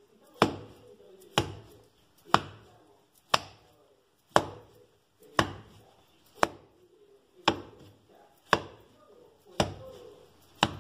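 A ball of bread-like dough being slammed down onto a stone (terrazzo) countertop, eleven heavy thuds at an even pace of about one a second: the repeated beating that gives the torta de 80 golpes ('80-blow cake') its name and texture.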